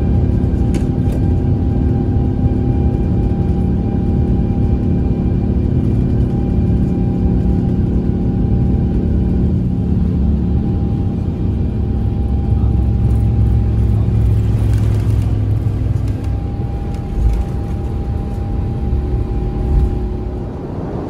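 Airbus A350-900's Rolls-Royce Trent XWB engines at takeoff power, heard inside the cabin: a loud, steady engine noise with a few held whining tones over a deep rumble from the runway roll. The rumble eases off a little near the end, and there are two short thumps.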